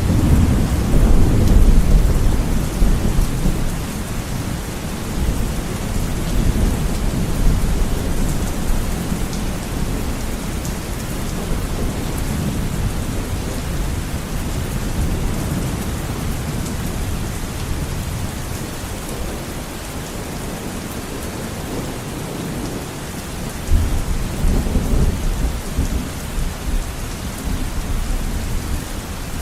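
Heavy rain beating steadily on a window, with low rumbles of thunder: one swelling at the start, and another breaking in suddenly about 24 seconds in.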